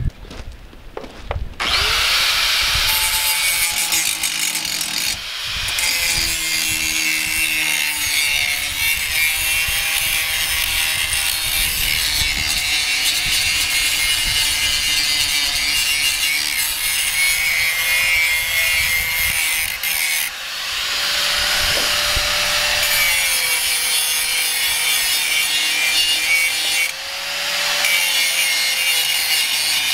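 Angle grinder grinding the steel trailer tongue clean to prepare it for welding. It starts about two seconds in and runs steadily, easing off briefly three times.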